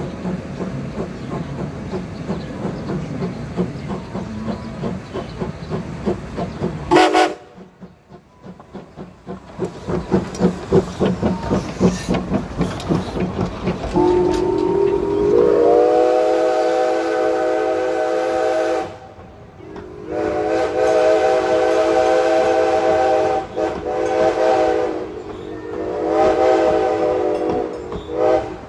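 A steam locomotive working with a rhythmic chuff, a short whistle toot about seven seconds in, then passenger cars clattering by on the rails. From about halfway, an MD Whistles Reading six-chime steam whistle sounds a long chord blast that builds as it opens fully, followed by several more long blasts with short breaks between them.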